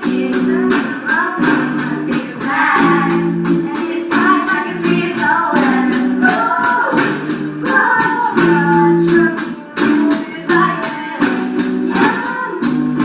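A song: voices singing a melody over held backing chords and an even, quick beat of tambourine-like strokes, about four a second.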